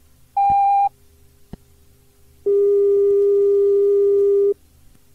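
Electronic signal tones recorded on a Shinkansen onboard-announcement cassette, the kind of cue tones between announcement segments. A short, higher beep comes about half a second in, then a lower steady tone lasting about two seconds, over faint tape hiss with a single click between them.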